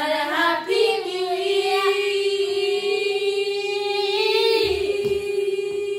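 A group of children singing together, settling about a second in onto one long held note.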